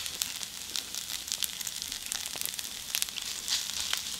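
Day-old rice and bean sprouts sizzling in a hot cast-iron skillet, a steady hiss dense with small crackles and pops.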